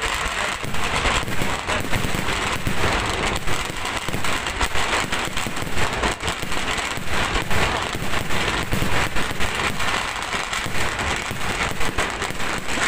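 Kerala temple-festival fireworks: a dense, unbroken barrage of crackling and bangs from aerial shells and ground firecrackers going off many times a second.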